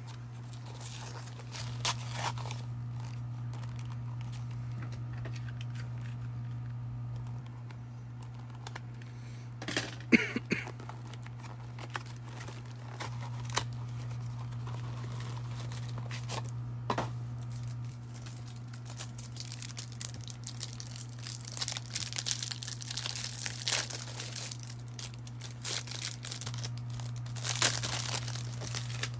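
Foil wrapper of a trading-card pack being torn open and crinkled in scattered bursts, loudest about ten seconds in and busiest near the end, over a steady low hum.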